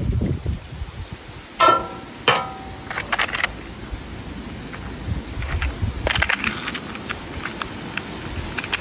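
Small metal pieces clinking together, a few sharp clinks each with a short ringing tone about two seconds in, then another cluster of clicks around six seconds in, with wind rumbling on the microphone.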